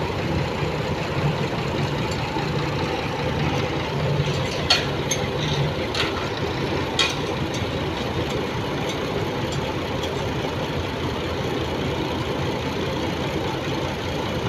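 Ford tractor engine idling steadily, with a few sharp clanks around the middle.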